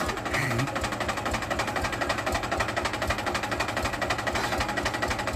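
Mahindra 265 DI tractor's three-cylinder diesel engine running with a steady, rapid, even beat.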